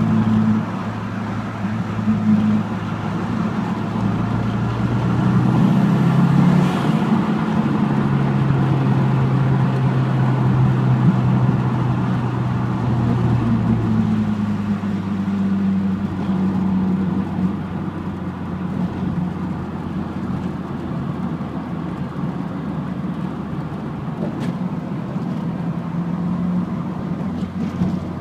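Car engine and tyre noise heard from inside the cabin while driving, a steady low engine hum whose pitch shifts up and down a few times with the throttle.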